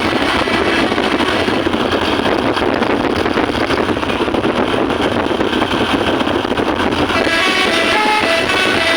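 Loud, steady vehicle noise from a bus. About seven seconds in, its musical 'telolet' horns play a tune of short, stepped notes.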